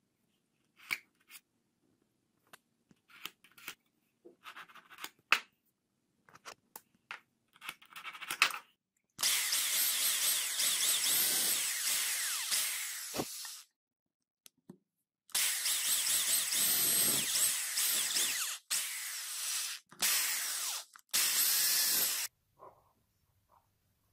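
Electric drill boring a hole into a small wooden block, run in four spells of one to four seconds each. Light clicks and taps come before the drilling.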